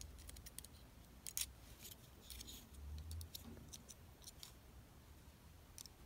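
Faint, scattered small metallic clicks and scrapes as a screwdriver tip works the spring contact of an electric kettle's base thermostat switch, checking the contact after it has been bent to close.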